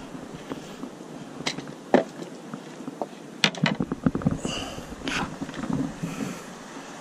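Footsteps through dry twigs and brush, with spruce branches rustling and brushing past, and scattered snapping knocks. The sharpest knock comes about two seconds in, and a run of quick snaps and rustles follows about three and a half seconds in.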